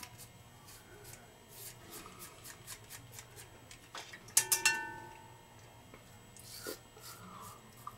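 Gillette Mach 3 three-blade cartridge razor scraping through stubble in short strokes, then rapped three times against the bowl about halfway through, each knock ringing briefly, before the scraping resumes.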